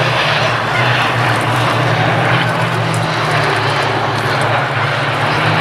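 Hawker Hurricanes flying past in formation, their Rolls-Royce Merlin V12 piston engines running with a steady, unbroken engine note.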